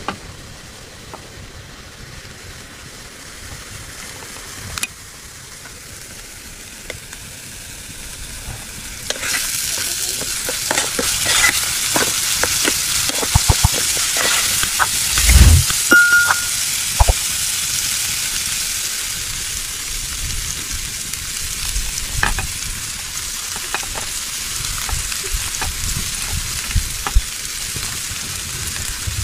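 Chopped onions sizzling in hot oil in a metal wok, the hiss rising suddenly about a third of the way in and continuing steadily. A metal slotted ladle stirs them, clicking and scraping against the pan, with one heavier knock midway.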